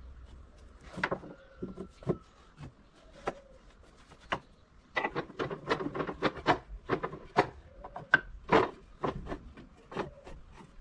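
Short, irregular knocks and clatter of wood on wood, with some rubbing, as wooden parts or tools are handled on a workbench. A few scattered knocks come first, then a dense run of them from about five seconds in until near the end.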